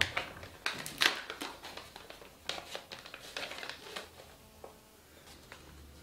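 Paper rustling and crinkling as a telegram envelope is opened and the message drawn out, a quick run of crisp handling noises, loudest about a second in, dying down after about four seconds.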